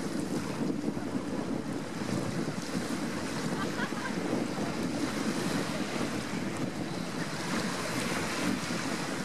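Wind rumbling steadily on the microphone over the wash of small waves on the Baltic Sea.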